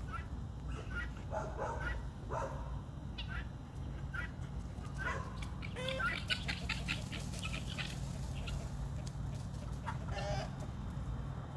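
Backyard chickens clucking and calling, with a quick run of repeated calls about six seconds in and another call near the end.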